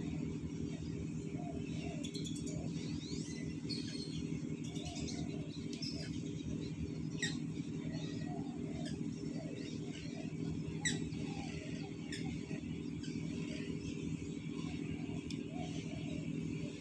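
Small birds chirping and tweeting on and off over a steady low hum. Two sharp clicks stand out, the louder one about eleven seconds in.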